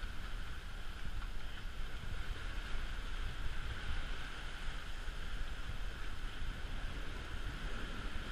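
A sailing yacht under sail at about 8 knots: a steady rush and hiss of the bow wave and spray foaming along the hull, with a low, uneven rumble of wind buffeting the microphone.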